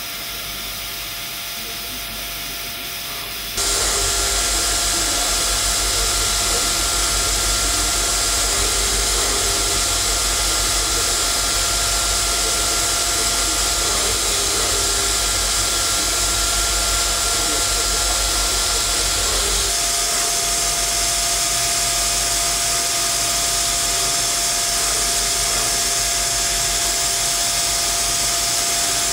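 Haas Multigrind CB CNC grinding machine grinding a hob cutter: a steady hissing rush of the grinding wheel and coolant spray, with a faint steady whine. It gets suddenly louder about three and a half seconds in and changes tone again around twenty seconds.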